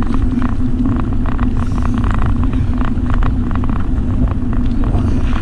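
Wind buffeting the microphone of a camera on a moving bicycle, a loud, steady rumble with road noise and a steady low hum underneath.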